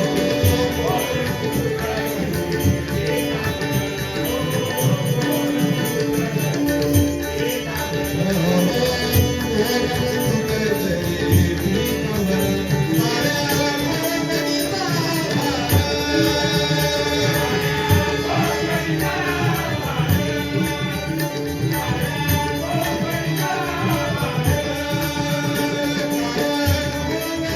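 Devotional bhajan music: a singing voice with tabla and instrumental accompaniment, steady and continuous.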